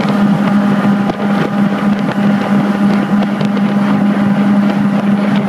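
Sunseeker XS 2000 Sport powerboat's twin straight-six turbo diesel engines running at speed with a steady, unchanging drone, under the rush of water and spray and wind on the microphone.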